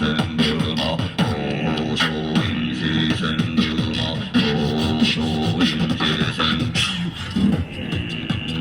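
Beatboxing: a rapid run of vocal drum clicks and snares over a pitched, bending vocal bass line.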